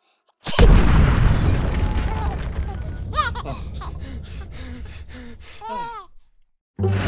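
Cartoon crash-and-explosion sound effect bursting in suddenly about half a second in, its rumble dying away over several seconds. Short high-pitched squealing voice sounds come twice, around three seconds in and again near six seconds.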